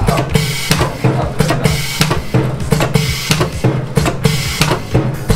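Background music with a steady drum-kit beat, about two beats a second.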